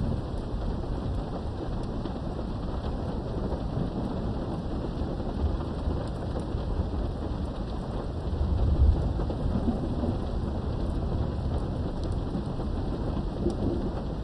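Steady heavy rain with rolling thunder: a continuous rain hiss under low rumbles, with the loudest rumble swelling about eight to nine seconds in.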